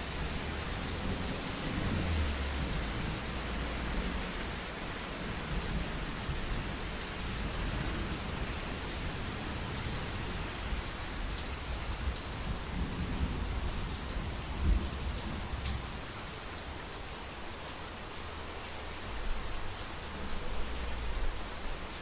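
Heavy rain falling steadily, with low thunder rumbles rolling in and out and one sharper, louder clap about two-thirds of the way through.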